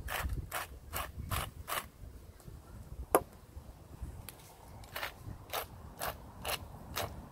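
Wooden hand salt mill and then wooden pepper mill being twisted to grind seasoning, each turn a short gritty rasp, about two a second. There is a sharp knock about three seconds in, between the two runs of grinding.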